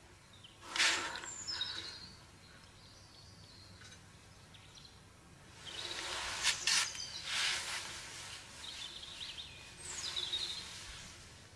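A woman's shaky, gasping breaths in shock and distress, in a few surges: about a second in, again around the middle and near the end. Faint high chirps come between them.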